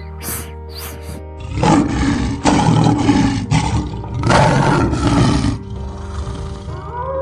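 A few short hisses from a snake in the first second, then a male lion roaring in four loud, rough bursts, over steady background music.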